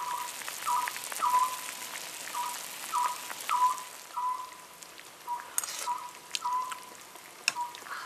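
Gochujang stew bubbling in a pot over a fire, a string of soft, irregular plops about every half second, with a few faint ticks.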